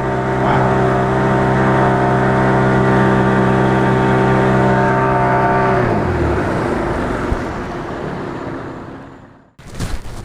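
Motorboat engine running steadily at one pitch as it passes close by. About six seconds in, the pitch drops and the sound fades as it moves away.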